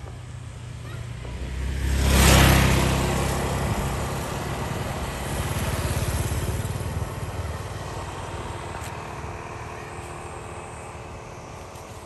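Motor vehicles passing on the road: one goes by close, loudest about two seconds in, and a second swells and fades around six seconds in.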